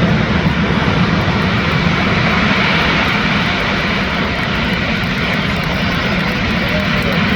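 The four turbofan engines of a Boeing C-17 Globemaster III running loud and steady through its short-field assault landing, with a faint high whine over the roar.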